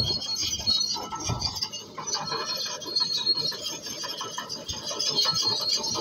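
Komatsu D155A crawler bulldozer on the move, its steel tracks squealing and grinding with a steady high squeal over scraping and low knocks.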